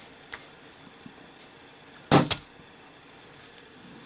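A lit brass Zippo lighter is dropped and lands with one sharp clatter about two seconds in. A faint click comes shortly before it.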